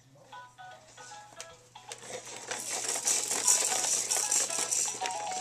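Baby jumperoo's toy tune playing in short electronic notes, then from about two seconds in a loud, steady rattling of plastic toy parts joins it as the seat bounces.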